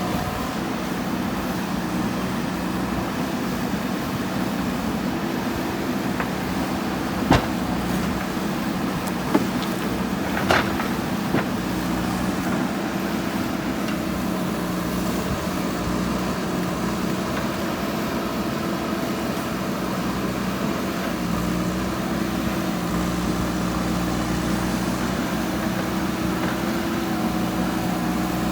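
JCB 3DX backhoe loader's diesel engine running steadily, with a few sharp knocks between about seven and eleven seconds in, the first the loudest.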